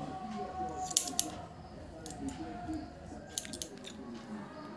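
Barber's hair-cutting shears snipping hair held on a comb (scissor-over-comb cutting): short, sharp snips, two close together about a second in and a quicker run of several in the second half.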